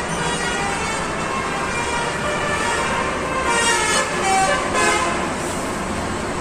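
Telolet musical horn on a Basuri bus playing a short run of notes at changing pitches, loudest about three and a half to five seconds in, over steady engine and road noise.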